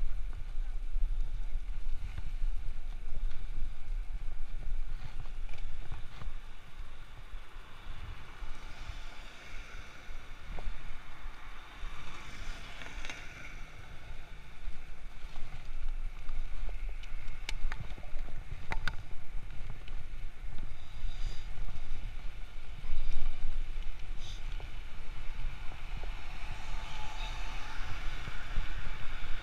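Wind buffeting the microphone of a camera riding on a moving bicycle, a steady uneven rumble, with city traffic in the background and a couple of sharp clicks about halfway through.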